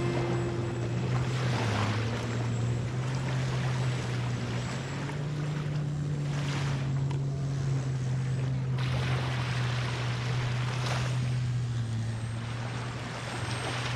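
FMS Ranger 1.2 m RC plane's electric motor and propeller droning steadily, its pitch shifting slightly now and then, over a rushing noise that swells several times.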